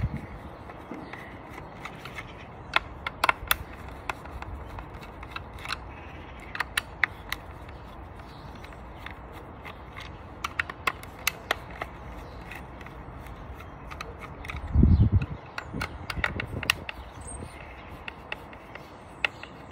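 Screwdriver undoing the T15 Torx screws in a Dyson V8's plastic cyclone housing: scattered small clicks and ticks of the bit and screws against the plastic. A brief low thump comes about fifteen seconds in.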